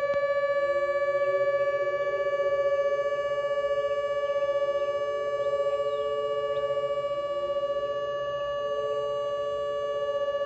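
Mini ASC Alertronic AL4000 electronic warning siren sounding a steady alert tone on its low-tone setting, one held pitch around 575 Hz with a thin, tinny edge. A second, lower siren tone fades in and out beneath it, clashing with it.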